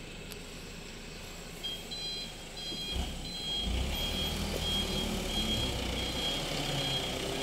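A truck's reversing alarm beeping, starting about one and a half seconds in and repeating about every half second, as the loaded lorry backs up. Its diesel engine runs underneath and grows louder about three seconds in as it pulls the load.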